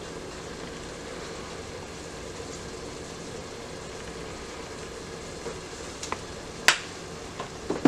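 Dove breast meat frying in hot oil in a pan, a steady sizzle, with a few sharp clicks near the end.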